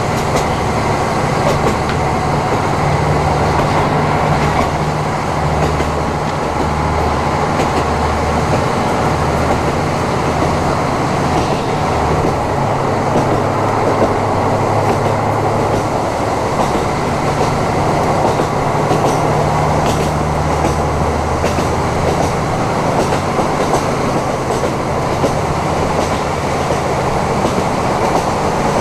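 KiHa 54 diesel railcar running along the line, heard from inside the car: a steady diesel engine drone whose pitch shifts a few times, over the rumble of wheels on rails with faint clicks.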